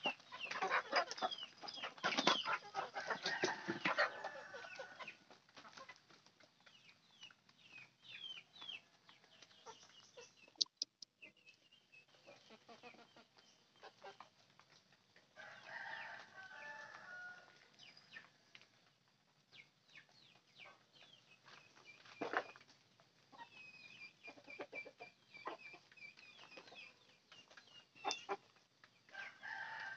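Free-range village chickens clucking, with scattered short high peeps; the busiest clucking is in the first few seconds, and one long drawn-out call is held for a few seconds past the middle.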